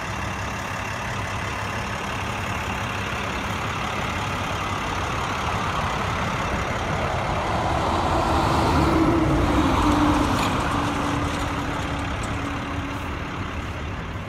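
Road traffic: a steady low rumble that swells as a vehicle goes by about eight to ten seconds in. A single engine tone drops slightly in pitch as it passes, then fades.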